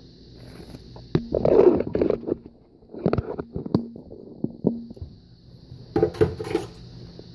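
Plastic bread bag crinkling as it is handled, followed by a series of sharp clicks and knocks of hard objects being moved about.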